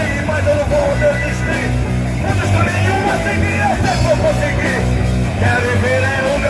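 Rock band playing a song, with a singer's voice over the instruments.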